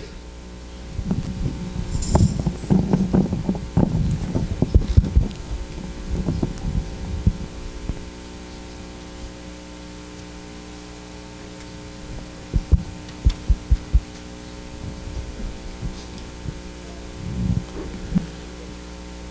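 Steady electrical mains hum from the church sound system, with many muffled low thumps and knocks through the first part and a quick run of about five thumps past the middle.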